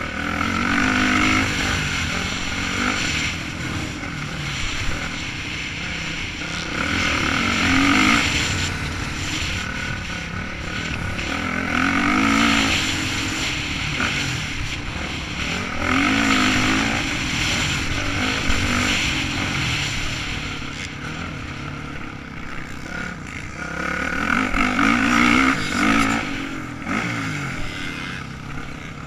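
Motocross dirt bike engine heard up close from on board, revving hard and easing off several times as the bike accelerates along the track.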